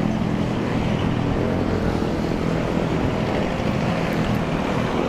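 Wind rushing over the microphone while cycling, mixed with the steady hum of nearby motor traffic.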